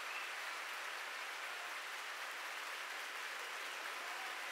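Large audience in a concert hall applauding steadily.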